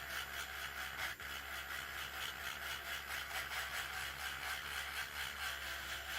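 Small electric sander running at a turned-up speed against dried putty on a resin model part, a steady whirring grind with a fast, even pulsing.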